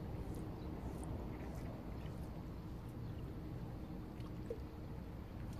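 Small waves lapping and trickling against shore rocks, with scattered faint splashes over a steady low rumble.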